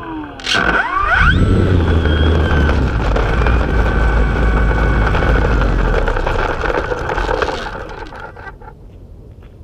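RC plane's motor and propeller whine, winding down and then, after a knock about half a second in, revving up again. A loud, rough rumble follows for several seconds as the plane races across gravel, fading out near the end as it comes to a stop.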